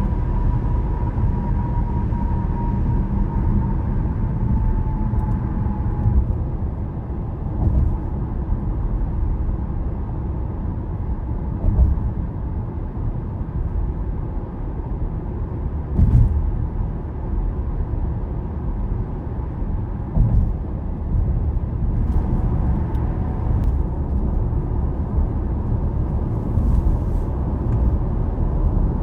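Steady road and tyre rumble of a car cruising at highway speed, heard from inside the car, with a few brief thumps.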